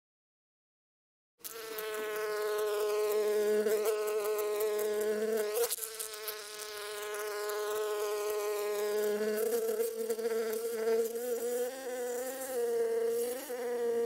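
Honeybees buzzing in flight: a steady, close wing buzz that wavers a little in pitch, starting about a second and a half in, with a deeper second buzz joining on and off.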